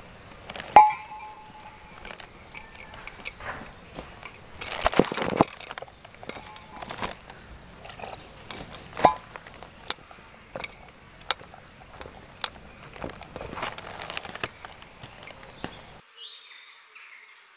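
Stainless steel vessels being handled: a steel tumbler clinks against a steel pot with short ringing clinks about a second in and again about nine seconds in, water is poured into the pot of maida flour for batter, and small knocks and scrapes of metal come in between. Faint insect chirping near the end.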